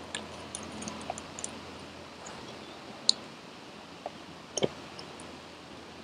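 Dry wood shavings and thin splinters clicking and tapping against the split log as they are pushed into its centre as kindling. The clicks are few and scattered, with the sharpest about three seconds in and a double click just after four and a half seconds.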